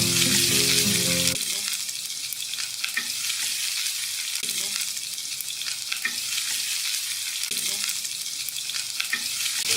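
Chopped onions frying in hot oil: a steady sizzle, with occasional light clicks of a spatula stirring in the pan. Background music plays for about the first second and a half, then cuts off.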